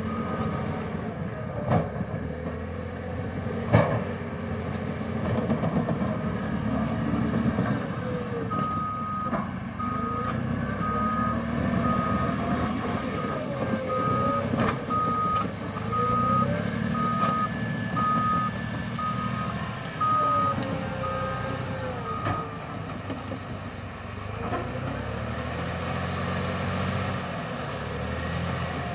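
Cat D6T bulldozer's diesel engine working steadily, with a whine that rises and falls as the load changes. Two sharp knocks come in the first few seconds. From about a third of the way in, its reverse alarm beeps about once a second for some fourteen seconds while the dozer backs up.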